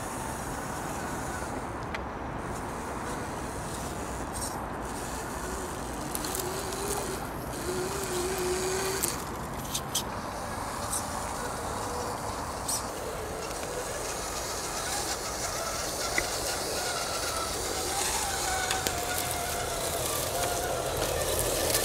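35-turn brushed electric motor and geared drivetrain of an Axial Honcho RC crawler whining as it crawls over woodland ground, the pitch wavering up and down with the throttle, with scattered clicks and crackles.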